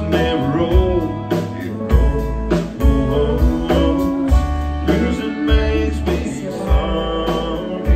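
Live country band playing a slow song: a woman singing with fiddle, electric bass and drums keeping a steady beat.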